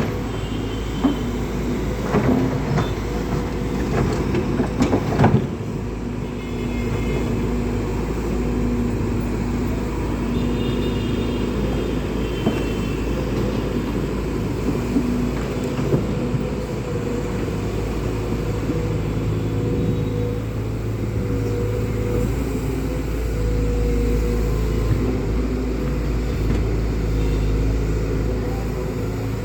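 Heavy diesel engine running steadily with a low drone. A few sharp knocks and rattles come from about two to five seconds in.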